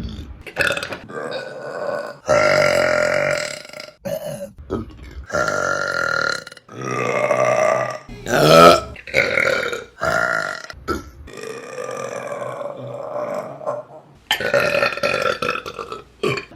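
Women burping, a run of long drawn-out burps one after another with sudden breaks between them. The loudest is a short burp a little past halfway.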